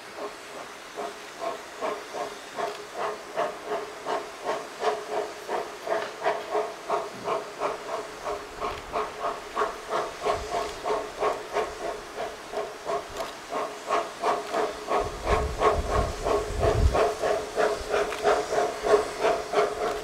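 Narrow-gauge (760 mm) steam locomotive approaching, its exhaust chuffing in a steady beat of about two and a half puffs a second that grows louder. A low rumble joins about three-quarters of the way in.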